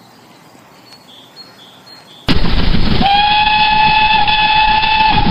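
Faint outdoor background, then an abrupt cut to a loud running train. About three-quarters of a second later a train whistle sounds, one steady held chord of several tones.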